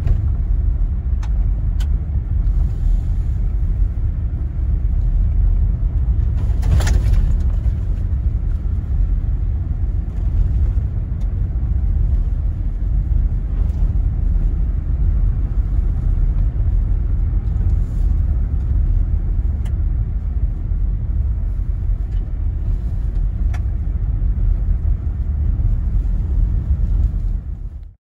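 Steady low rumble of a Jeep Gladiator pickup driving on a gravel road, tyre and engine noise heard from inside the cab. Scattered sharp ticks, with one louder knock about seven seconds in.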